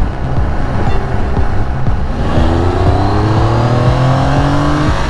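Triumph Trophy motorcycle engine accelerating, its pitch rising steadily from about two seconds in and dropping near the end as it shifts up, over the rush of wind on the microphone.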